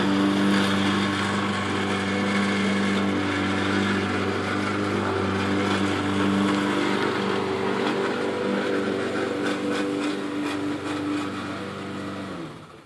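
Petrol lawn mower engine running steadily, a constant engine drone that dies away near the end.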